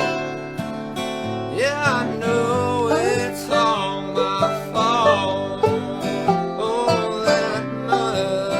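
Bluegrass band playing an instrumental break: acoustic guitar and banjo picking, with a lead line that slides and bends between notes in the first half.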